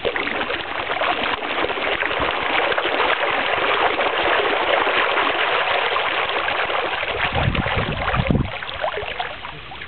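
Water churning and splashing as the vertical thruster propeller of a homemade PVC-frame ROV drives it down from the surface, starting abruptly. A low rumble joins in for about a second near the end.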